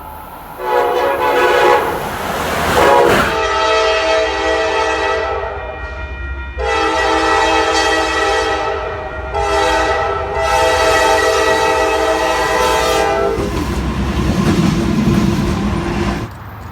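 Train horn sounding a multi-note chord in a run of blasts: a first one of about two and a half seconds, then three long ones, the last split by a brief break. The train's low rumble follows, and the sound cuts off suddenly near the end.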